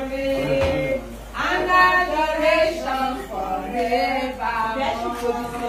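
A group of voices singing together, some notes held long.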